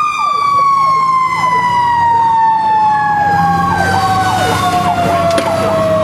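Fire engine's mechanical siren winding down, its pitch falling slowly and steadily, while an electronic siren sweeps rapidly down and up about twice a second over it. The truck's engine hums underneath, as heard from inside the cab.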